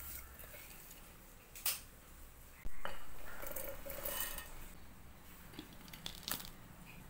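Kitchen utensils clanking on a stainless-steel mixer-grinder jar. A sharp metallic knock comes a little under three seconds in, then a rattle as raisins are tipped into the jar, and light clicks near the end as the lid is fitted.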